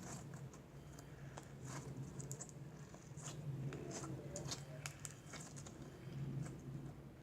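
Glitter-filled putty being squeezed and kneaded by hand, giving scattered soft clicks and crunchy crackles as the glitter is worked in. A steady low hum runs underneath.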